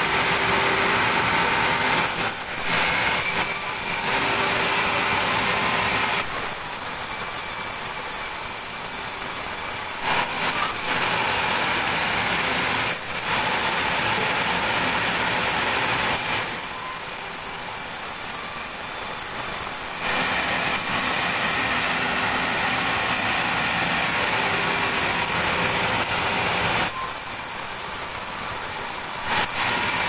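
Sawmill saw slicing boards off a mud-caked meranti log with a high, steady whine. It drops a little quieter for a few seconds between cuts, about every ten seconds.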